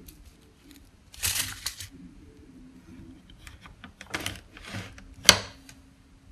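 Paper sugar sachets and condiment packets being handled: a few short rustling crinkles, then a sharp click about five seconds in.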